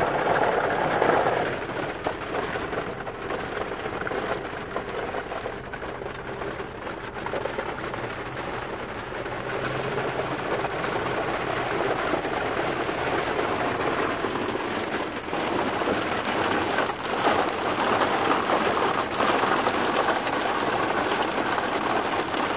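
Rain falling on a truck, heard from inside the cab: a steady hiss of rain with many sharp individual drop hits on the roof and glass.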